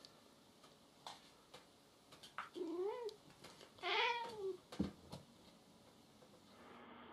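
Domestic cat yowling twice in a confrontation with another cat, each call wavering in pitch, the second louder and longer, followed by two quick thumps.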